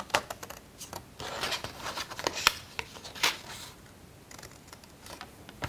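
Scissors snipping through paper: an irregular string of sharp snips with paper rustling in the hand, thinning out after about three seconds.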